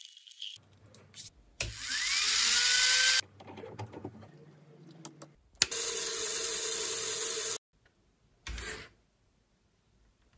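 Small electric motor running in separate short bursts with abrupt cuts between them. The first rises in pitch as it spins up. The second, about halfway through, is a steady whine from a small yellow plastic DC gear motor turning a shaft. A brief third burst follows near the end.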